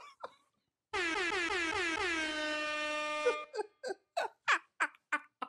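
Air-horn sound effect: a quick run of about five short blasts ending in one long held blast, cut off abruptly. Then a run of short laughs.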